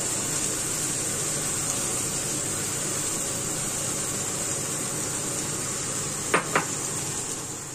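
Shrimp frying in butter in a pan, a steady hissing sizzle. Two sharp clicks come about six seconds in, and the sizzle thins just at the end.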